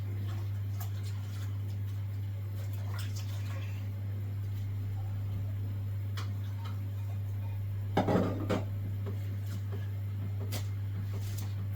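Kitchen pots and utensils being handled: scattered light clicks and knocks, with a louder clatter about eight seconds in, over a steady low hum.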